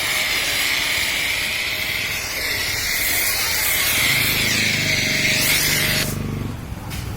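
High-pressure washer spraying a steady jet of water onto a car, a loud hiss that cuts off sharply about six seconds in. A lower hum joins about four seconds in.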